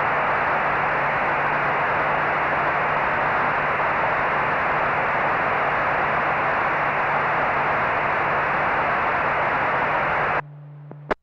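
Radio static from a fire-dispatch scanner feed: a loud, even hiss that lasts about ten seconds and cuts off abruptly, followed by a single click near the end.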